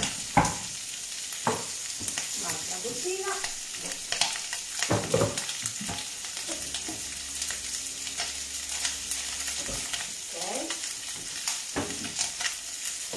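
Octopus tentacles and asparagus sizzling steadily in a frying pan, with occasional knocks and clatter of bowls and utensils being set down on a counter.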